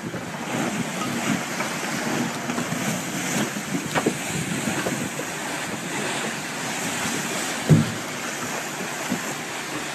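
Wind buffeting the microphone over open sea, with waves and water churning where a capsized boat is going under. One brief low thump about three-quarters of the way through.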